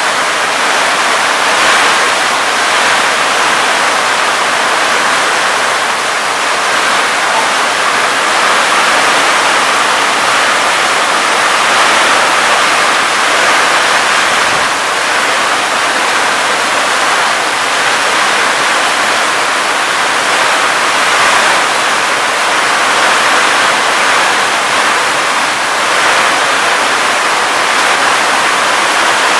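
Heavy rain pouring down onto corrugated roofs and running off the eaves: a loud, steady rushing hiss.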